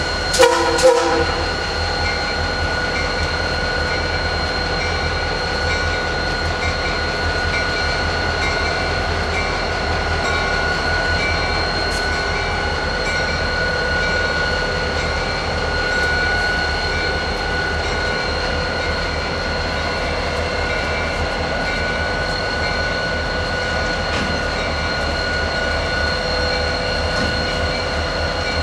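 Union Pacific DDA40X Centennial No. 6936, with its twin EMD 16-cylinder diesels idling, being turned on a locomotive turntable: a steady engine hum with a constant whine over it. Two short toots of the horn sound right at the start.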